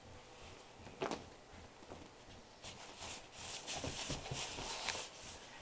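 Rustling and swishing of a toddler's puffy nylon winter jacket as she moves and shakes about, a run of quick rustles from about two and a half seconds in to about five seconds, after a single short knock about a second in.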